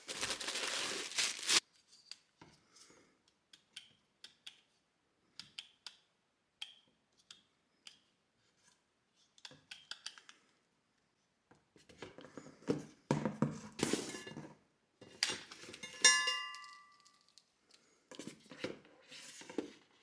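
Winch parts and their packaging being handled during unboxing: a second and a half of rustling or tearing at the start, scattered small clicks and taps, then a stretch of rustles and knocks. A metal part clinks with a brief ring about sixteen seconds in.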